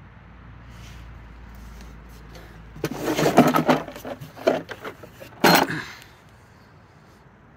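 Hard plastic tool case of a NAVAC flaring tool kit being unlatched and opened: a cluster of clacks and knocks about three seconds in, then a couple more sharp knocks, the last near the end.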